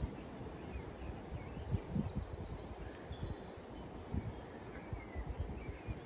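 Outdoor ambience of wind gusting on the microphone as an uneven low rumble, with a few faint bird chirps and calls scattered through it.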